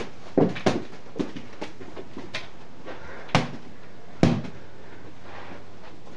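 Irregular thumps and knocks of a person's feet running and jumping on the floor, a few quick ones at the start and two heavier thuds around the middle, over a steady background hiss.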